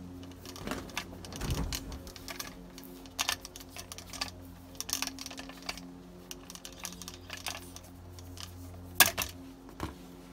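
Tape being pulled off the roll and stretched tight around a plastic funnel spout: an irregular run of short crackles and clicks, with one sharper snap about nine seconds in. A steady low hum sits underneath.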